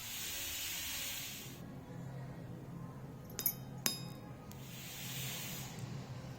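Two quick, light clinks of small miniature cooking utensils knocking together, a little after the middle, with a soft hiss before and after them.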